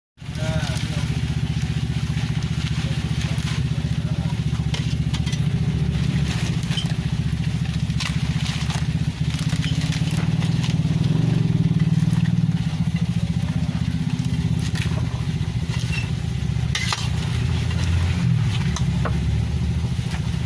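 Steady, loud low motor rumble, engine-like, with scattered sharp clicks and crackles over it.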